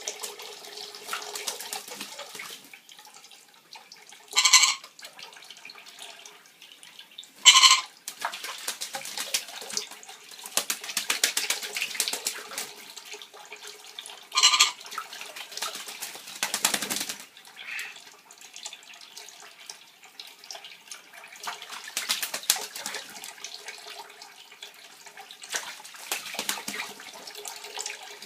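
Tap water running while a pet bird bathes, with bursts of fine splashing as it flutters in the stream. The bird gives three short, loud squawks, about four, seven and fourteen seconds in.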